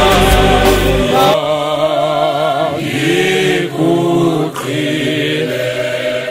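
Choir of several voices singing in harmony, gospel-style. The deep bass under the first second drops out, and the voices then sing unaccompanied in short phrases.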